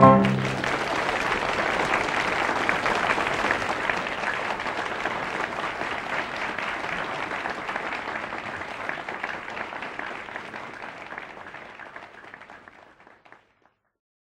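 Audience applauding as the song ends, the clapping dying away gradually until it stops about thirteen seconds in.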